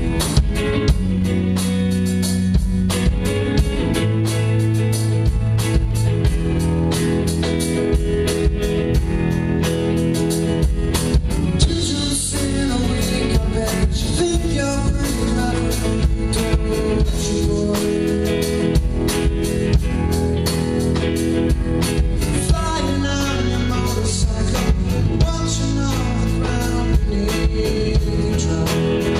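Rock band playing live: electric guitars, bass guitar and drum kit, with a man singing lead.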